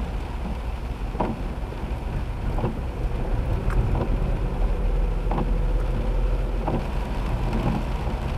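Inside a car driving on a rain-soaked road: a steady low rumble of engine and tyres with rain hiss. A windscreen-wiper knock comes about every second and a half.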